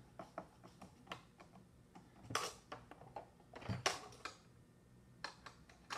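Small irregular clicks and taps of a hand screwdriver driving a truss bolt into a nylon-insert lock nut on the plastic handle bracket of an organizer case, with a couple of louder knocks about two and four seconds in.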